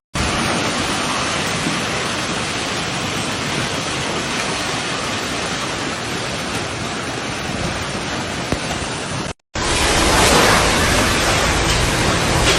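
Storm noise: a steady rushing of wind and heavy rain. It breaks off for an instant about nine seconds in and comes back a little louder.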